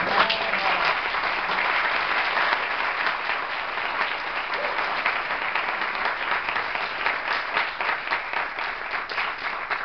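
Audience applauding: a long, steady round of clapping from a seated crowd, which stops suddenly at the end.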